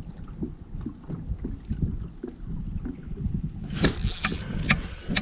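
Gusty wind rumbling on the microphone, with scattered small knocks and a brief sharp rattle about four seconds in.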